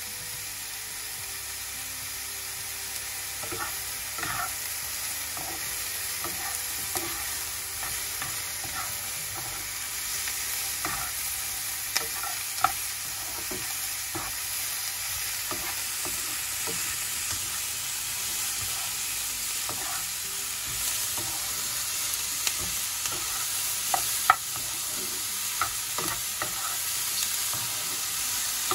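Sliced mushrooms and onions sizzling as they sauté in a nonstick frying pan, with a spatula stirring and tapping against the pan. The stirring starts a few seconds in and brings a few sharper knocks.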